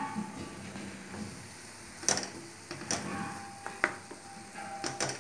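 A ladle stirring and scraping a thick grated-coconut and jaggery filling in a metal kadai, with four sharp knocks of the ladle on the pan in the second half.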